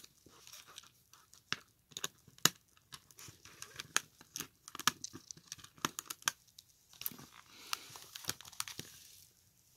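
Small screwdriver backing the tiny screws out of the plastic back of an HP 10s calculator, with the plastic case being handled: a string of irregular light clicks and scrapes.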